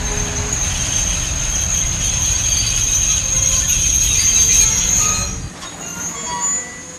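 A train running on rails, its wheels giving a high, steady squeal over a low rumble, growing louder to about four and a half seconds in, then dropping away and cutting off suddenly.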